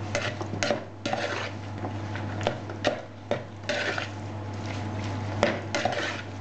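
Metal spoon scraping and clinking against a plastic bowl while tossing chopped cherry tomatoes, in irregular strokes. A steady low hum runs underneath.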